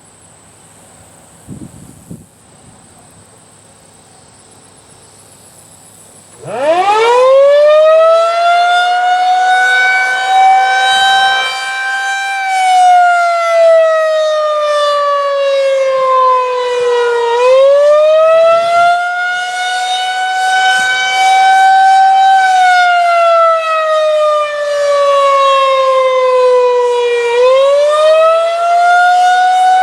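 Federal Signal 2001-130AC rotating electromechanical siren winding up about six and a half seconds in, then sounding a wail: its pitch sinks slowly and climbs back up twice.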